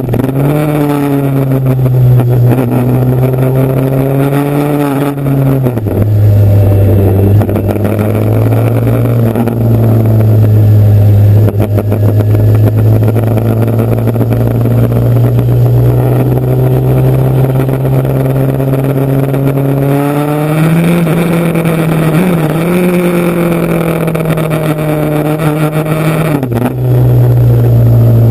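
Motorcycle engine running under way, holding a steady pitch with short drops at gear changes about five and a half seconds in and near the end, and a rise as it speeds up around twenty seconds in.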